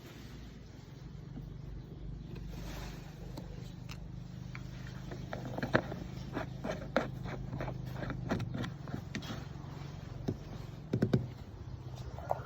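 A low, steady engine hum, with a string of sharp clicks and knocks from about five seconds in to about eleven seconds in.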